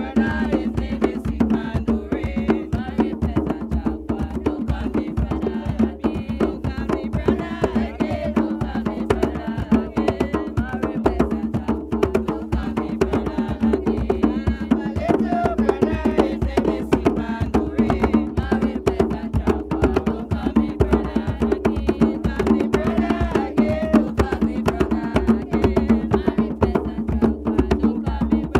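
Several djembes played by hand together in a fast, steady rhythm.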